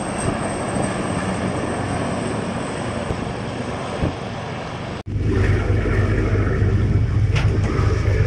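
A helicopter flies over open sea, a steady rushing engine and rotor noise. About five seconds in the sound cuts to a boat engine running steadily with a low hum.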